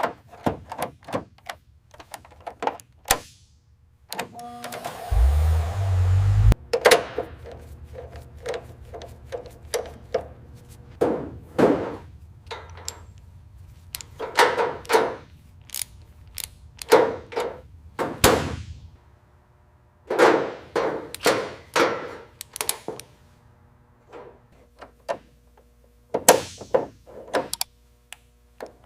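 Workshop handling of car parts: a long run of separate knocks, clicks and clanks as metal parts are picked up, set down and fitted. A short rushing noise with a low rumble comes about five seconds in.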